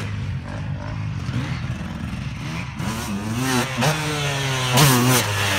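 250 cc two-stroke motocross bike engine, faint and steady at first, then revving up and down in quick rises and falls from about three seconds in, louder in the second half.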